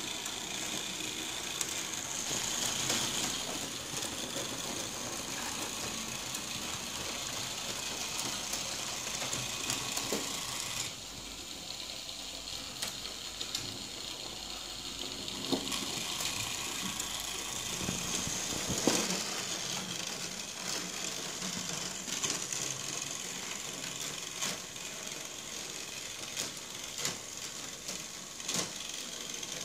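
H0-scale model streetcar with two trailers running: the small electric motor's steady whine with the wheels clicking over rail joints and points, and a few sharper clicks scattered through. The sound drops in level about eleven seconds in.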